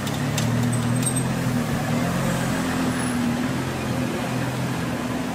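Pagani Zonda's Mercedes-AMG V12 running at low, steady revs, a deep even burble with no revving as the car rolls slowly.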